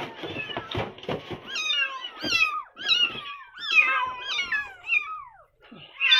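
Several very young kittens, eyes not yet open, mewing over and over: high, thin cries that fall in pitch and overlap one another. They begin after about a second of rustling and light knocks.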